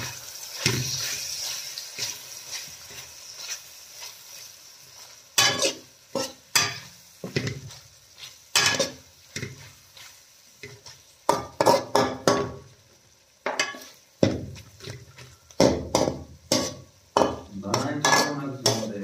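Slotted steel spatula scraping and knocking against a steel karahi as mutton liver is stir-fried, with irregular strokes, several in quick runs. A frying sizzle in the first few seconds dies away.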